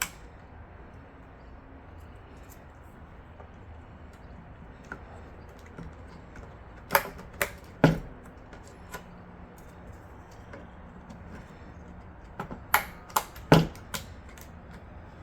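Sharp plastic clicks in two groups of about three, a few seconds apart: RAM sticks being pressed into the motherboard's memory slots, the slot latches snapping shut.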